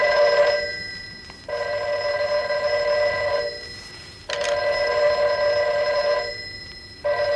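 Desk telephone's bell ringing in repeated rings of about two seconds with gaps of about a second: one ring ends about half a second in, two full rings follow, and another begins just before the end.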